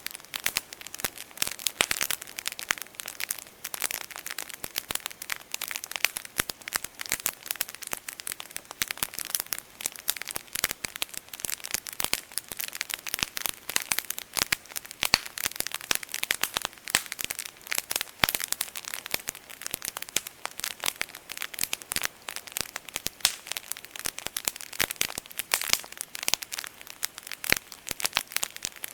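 Wood campfire crackling, with a constant dense stream of small pops and snaps and an occasional louder pop.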